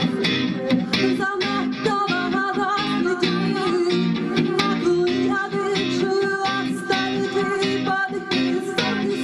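Folk-rock band playing live: electric guitar over a steady beat, with a woman singing.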